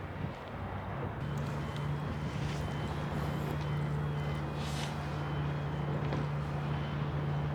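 A steady low engine hum starts about a second in and holds, over constant background noise.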